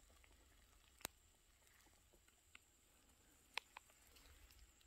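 Near silence, broken by a few faint, short clicks about a second in, mid-way, and a pair near the end.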